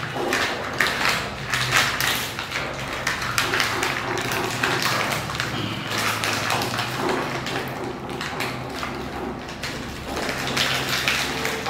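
Laminated foil-and-plastic sweet pouch crinkling and rustling as it is handled and torn open, in irregular crackles.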